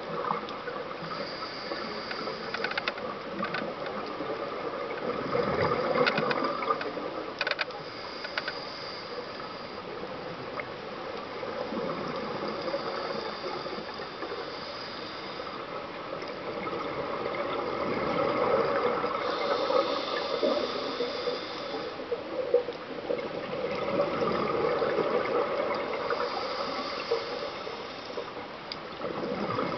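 Scuba regulator breathing heard underwater: rushing exhaled bubbles and hiss that swell about every six seconds, with scattered small clicks.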